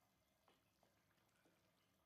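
Near silence, with a few faint soft knocks and wet scrapes of a spatula stirring thick curry in a steel pan.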